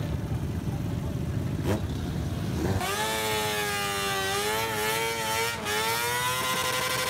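Small mini bike engine running at high revs: a low rumble for the first few seconds, then a high engine whine rises about three seconds in, holds with a slight waver and climbs again near the end.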